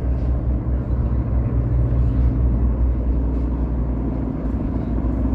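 An engine running steadily at constant speed, giving a loud, even low drone.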